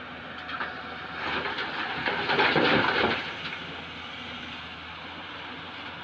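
Murram and broken rock pouring from a JCB tracked excavator's bucket into a Tata 2518 tipper's body: a rattling crash that builds about a second in, is loudest around two to three seconds, then dies away. The excavator's engine runs steadily underneath.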